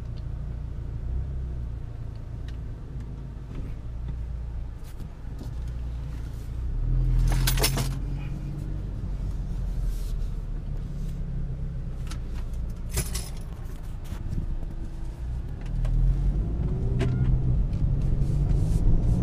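Modified, heavily boosted Audi S3's turbocharged 2.0-litre four-cylinder engine, heard from inside the cabin. It runs low and steady, then pulls harder about seven seconds in and again near the end as the car drives off. Two brief hisses are heard, one about halfway through and one a few seconds before the second pull.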